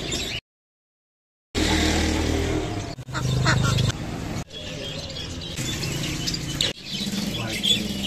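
Caged budgerigars and lovebirds chirping and chattering, over indistinct background voices and street noise. The sound cuts out completely for about a second near the start.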